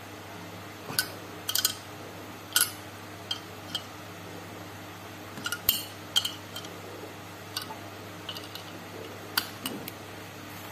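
Scattered sharp metallic clicks and clinks, about a dozen at irregular intervals, from a small wrench and puller rod working against the Yamaha FZ150i cylinder head while pulling out the small camshaft bearing. A low steady hum runs underneath.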